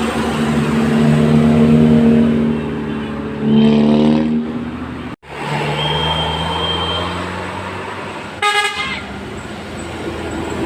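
Tour bus's Basuri multi-tone musical air horn (telolet-style) playing a tune of held notes that step and glide upward, over the low running of the bus engine. After a brief dropout near the middle the horn sounds more held notes, then a short shrill toot.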